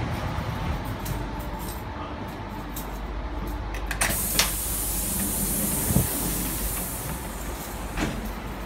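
Tangara electric train carriage interior: a steady low rumble. About four seconds in there is a sharp click, followed by about three seconds of high air hiss, with single knocks after it and again near the end.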